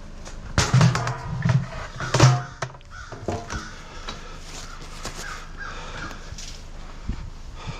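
A crow cawing: three loud harsh caws in quick succession in the first few seconds, then fainter calls.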